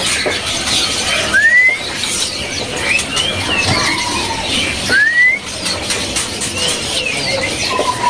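Many caged songbirds, among them white-rumped shamas (murai batu), chirping and whistling together. Two loud rising whistles stand out, about a second and a half and about five seconds in, and a long held whistle begins near the end.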